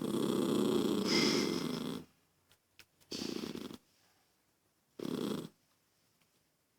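Toy poodle growling in three stretches: one of about two seconds, then two short ones about three and five seconds in. The growl is a sign of irritation, which the owner puts down to a girl's noise.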